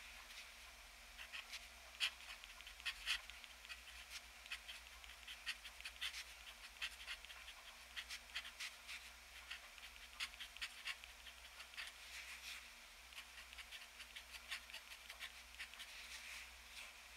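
Extra-fine steel nib of a TWSBI ECO fountain pen scratching across 75 g paper while writing Japanese characters: a quick, uneven run of short strokes and small ticks as the nib lands and lifts, with brief pauses between characters.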